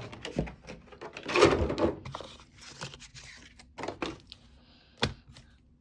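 Pokémon booster packs and their cardboard box being handled: irregular rustling and crinkling, loudest about a second in, with a few light knocks, one sharp knock near the end.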